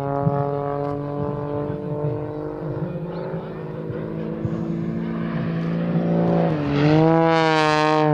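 Extra 330SC aerobatic plane's engine and three-blade propeller droning steadily through a manoeuvre. About six and a half seconds in, the pitch dips and then rises, and the sound swells louder and brighter as the plane comes close.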